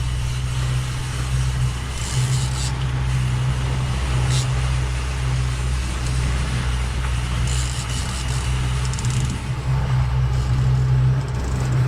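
Boat engine running with a steady low hum, under a constant rush of wind and water noise, with a few short hissing bursts.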